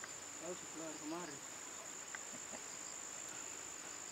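Insects shrilling in a steady, unbroken high-pitched drone, with a low voice murmuring briefly about a second in.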